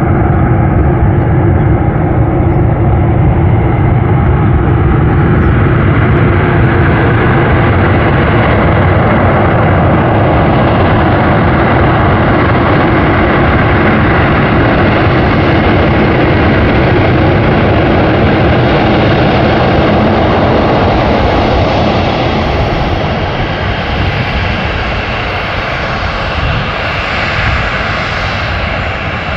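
Boeing 737-800 airliner's CFM56 jet engines, a loud continuous rumble with a rushing hiss during its landing. The sound grows steadily brighter over the first twenty seconds or so, then eases off slightly.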